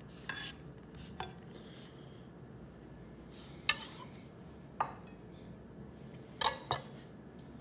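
A handful of light clicks and knocks from kitchen handling around a wooden cutting board, each one short and spaced a second or more apart, over faint room tone.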